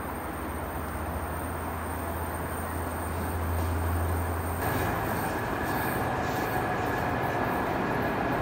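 DB Class 218 diesel-hydraulic locomotive with its train: a steady low engine drone, then just past halfway the sound turns abruptly louder and fuller, with a thin, steady high whine over it.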